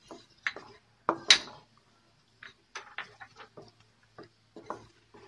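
Wooden spatula stirring a thick masala gravy in a non-stick wok, knocking and scraping against the pan in irregular clacks, the loudest about a second in.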